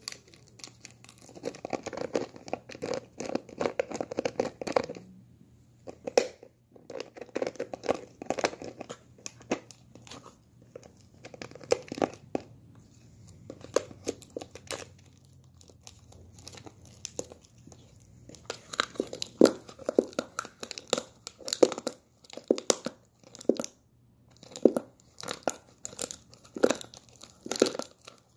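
A small dog gnawing and biting at the neck of a plastic protein-shake bottle, teeth clicking and scraping on the plastic and the bottle crinkling, in irregular bouts with a few short pauses.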